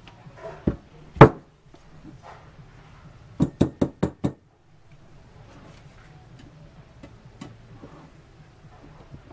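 Knocks from handling a black metal coinbox frame and panel on a work table: one sharp knock about a second in, the loudest, then five quick knocks in under a second around the middle.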